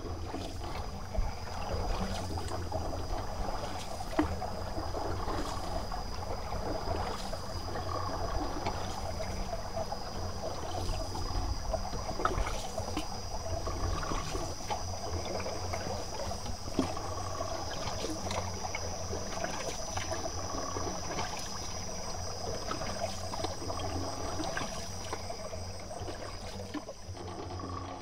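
Water trickling and lapping, with scattered small clicks and splashes over a steady low rumble and a faint high steady tone.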